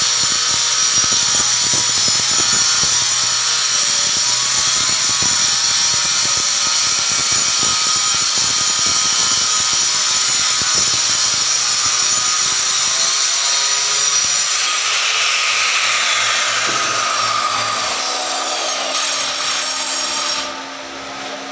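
Handheld electric circular saw cutting a quartz slab: a loud, steady high whine. About 15 s in the saw is switched off and its pitch falls over a few seconds as the blade spins down, leaving a quieter steady machine noise from the shop.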